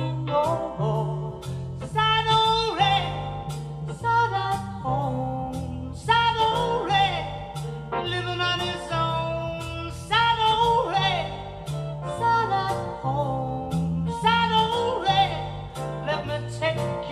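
A song played back through NHT Super One bookshelf speakers driven by a Marantz 4400 receiver in bridge mode. It has a stepping bass line, regular drum hits and a gliding lead melody.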